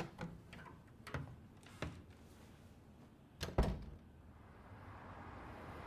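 A door in an anime's soundtrack, with a few light clicks and steps, then a door shutting with a heavy thud about three and a half seconds in. A low, even hiss slowly grows after it.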